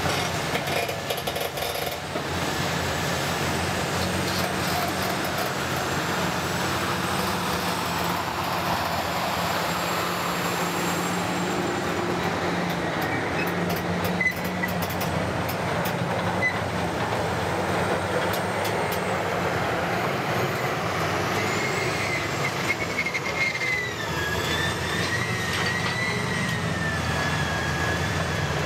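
Heavy construction-vehicle diesel engine running steadily, with a thin whistling tone that wavers in pitch in the second half.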